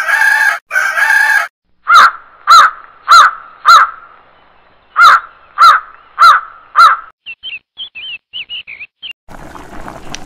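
A rooster crowing at the start, then two runs of four loud, sharp bird calls and a scatter of small high bird chirps. About nine seconds in, a pan of curry starts bubbling.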